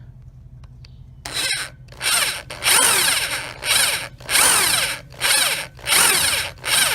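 Hand drill turning a step bit into a steel foot peg mounting bracket, run in short pulses in quick succession after a quiet first second. Each burst ends in a falling whine as the bit spins down. The bit is cutting the recess for a Time-Cert thread insert.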